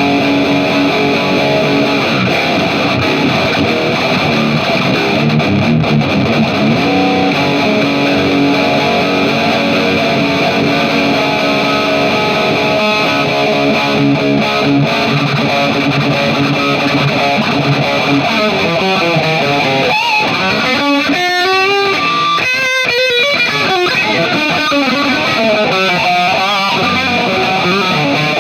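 Distorted electric guitar playing riffs of sustained notes; about twenty seconds in, the notes waver and bend in pitch for a few seconds.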